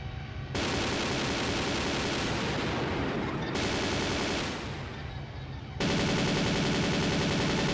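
Electronic music with a dense, distorted, rapid-fire drum and noise pattern. It kicks in about half a second in, dips briefly past the middle, and comes back louder and fuller near the end.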